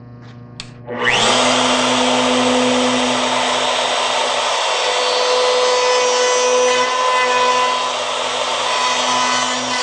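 Electric router switched on about a second in, spinning up with a rising whine, then running at a steady whine as it is pushed along a scarf-joint jig. Its flat cutting bit shaves a thin layer off the taper of a spruce strip.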